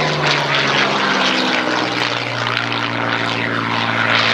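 Hispano Buchon's Rolls-Royce Merlin V12 engine and propeller in flight overhead, a loud, steady drone whose engine note falls in pitch over the first second or two and then holds.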